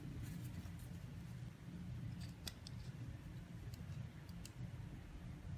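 Faint scraping and scattered light clicks as a plastic brush strip is pushed into the slot of an aluminium profile, the slot's sharp edge catching and bending the bristles; a low steady hum underneath.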